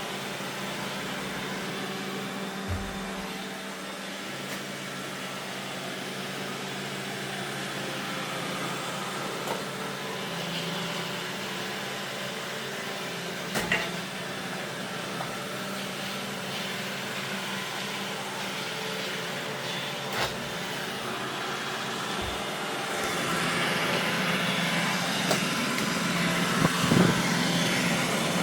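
Roomba robot vacuum running with a steady motor and brush hum, with a few short knocks as it bumps into things; it grows louder near the end.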